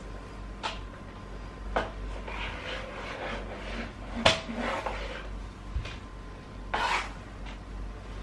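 Mop working over a wet timber floor: rubbing and scraping, broken by about four sharp knocks, the loudest a little past the middle.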